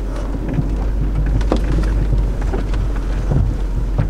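Rain hitting the windshield and roof of an off-road vehicle, heard from inside the cabin as many scattered small ticks over the vehicle's steady low rumble as it creeps along.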